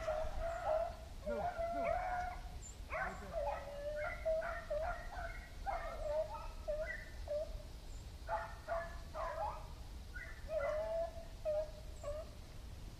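Pack of beagles baying while running a rabbit: a steady string of short, choppy barks with a few longer, drawn-out bays.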